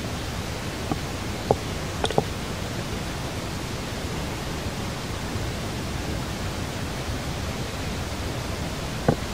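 A steady, even hiss of background noise, with a few short clicks about one to two seconds in and again near the end.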